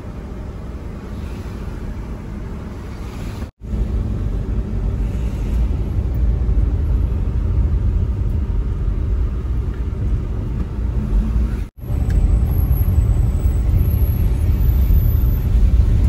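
Car driving on a road: a steady low rumble of engine and road noise, which cuts out abruptly for an instant twice, about three and a half seconds in and again near twelve seconds, a little louder after the first break.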